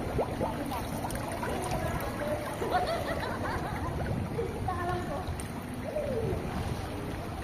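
Swimming-pool water sloshing and splashing close to the microphone as people wade through it, with faint voices now and then.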